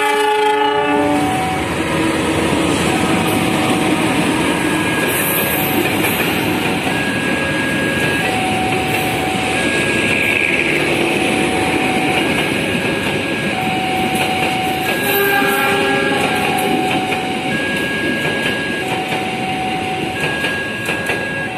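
A CC 206 diesel locomotive's horn, cutting off about a second in, then the Serayu passenger train rolling past with steady wheel-on-rail noise and some clickety-clack. Over it, a level crossing's electronic warning alternates a lower and a higher tone, each change roughly once a second.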